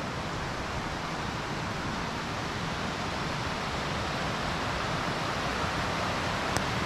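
Steady rush of a mountain creek running over rocks, slowly growing louder.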